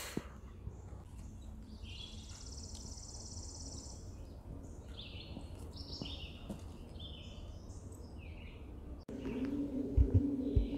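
Small songbirds chirping, with a high thin trill early on and a run of short high chirps after it. About nine seconds in the sound cuts to a low, wavering cooing of pigeons roosting up in the tunnel ceiling, with two low knocks.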